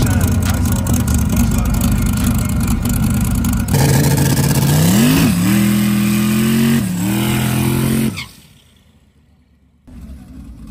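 Twin-turbo Ford V8 hot rod rumbling steadily, then revving hard through a burnout, spinning its rear tyre into smoke. Its pitch climbs, dips, climbs again and then cuts off suddenly about eight seconds in.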